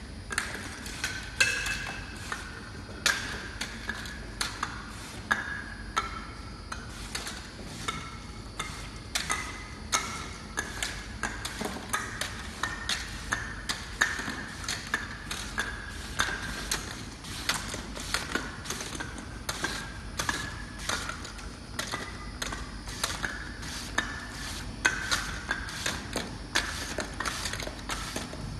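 A flat-top sticker labeling machine running, with plastic lids on its conveyor taking labels: irregular sharp clicks and clacks several times a second, and brief high-pitched tones that come and go, over a low mechanical hum.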